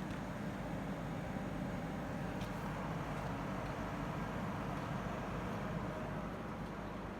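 CO2 laser cutting machine running: a steady mechanical whir and hum, with one faint click about two and a half seconds in.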